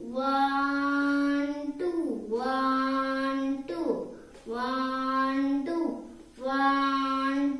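A child's voice singing or chanting four long, drawn-out held notes, each lasting about a second and a half, with a short sliding break between them.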